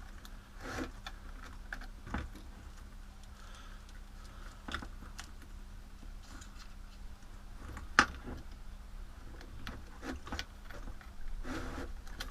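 Small plastic and metal parts of a rotary tool and its flexible-shaft extension being handled, giving scattered clicks and light rattles, with one sharp click about eight seconds in. The tool's motor is not running.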